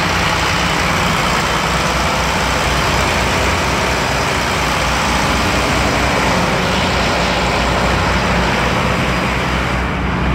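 Ship's engines running steadily in the engine room: a loud, constant drone with a low, evenly pulsing hum beneath it.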